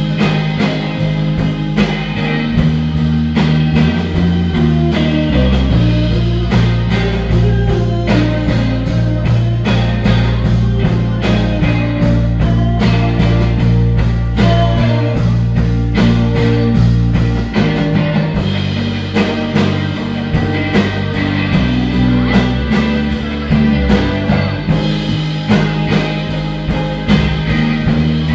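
Live rock band playing through amplifiers: two electric guitars over a drum kit with a steady beat and a bass line that shifts note every few seconds.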